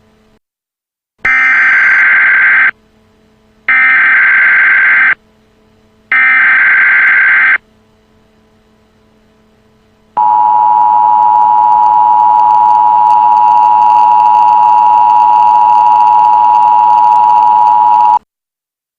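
Emergency Alert System signal: three short bursts of digital header data, each about a second and a half long, followed by a steady two-pitch attention alarm tone lasting about eight seconds that cuts off suddenly. This tone sequence precedes a broadcast weather warning.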